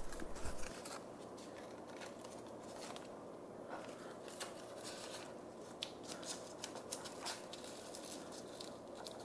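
Faint crisp crackling and rustling of dry nori seaweed strips being wrapped around sushi rice by hand, with scattered small sharp ticks.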